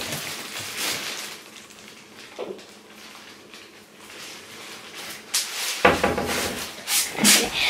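Kitchen wall-cupboard door being opened and then shut about five and a half seconds in, with a couple of sharp knocks and a short rumble of handling right after.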